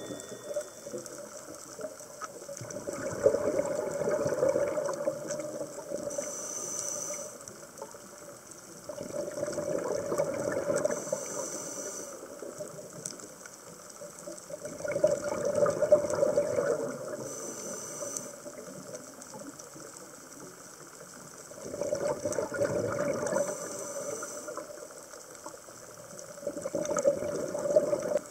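Scuba diver breathing through a regulator underwater: exhaled bubbles rushing and gurgling for two to three seconds, then a short hiss of inhaling, repeating about every six seconds.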